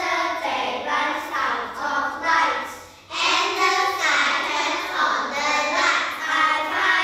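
A group of young children voicing a poem together in unison in a chanting, sing-song delivery, with a short pause about three seconds in.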